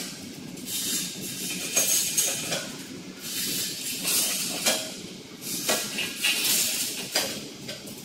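Steel rebar mesh welding machine running through its cycle: bursts of hiss come roughly once a second over a steady mechanical hum.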